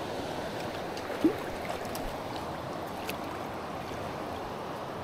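River water flowing steadily around the wading angler, an even rushing hiss of the current, with one brief, sharp rising sound a little over a second in.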